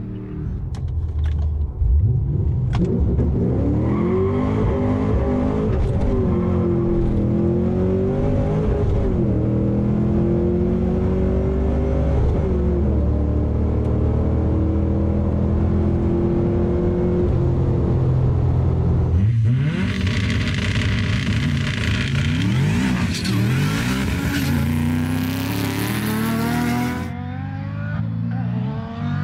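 V8 cars accelerating hard down a runway on drag passes, each engine note climbing and dropping back at every upshift. Part of it is heard from inside the cabin of a manual Holden Commodore.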